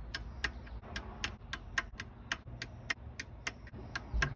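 Ratchet of a torque wrench clicking steadily, about four clicks a second, as the camshaft bearing cap bolts on a BMW M52 cylinder head are run down to torque.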